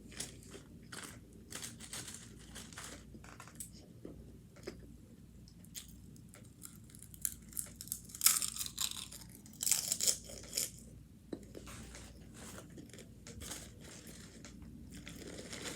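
Close-up eating sounds: a person chewing and crunching on tacos, with irregular crackles and rustles. The busiest, loudest stretch of crunching comes about two-thirds of the way through.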